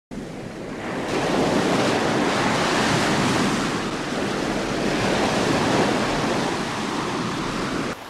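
Ocean surf: waves breaking and washing in a steady rushing noise that fades in over the first second and stops abruptly near the end.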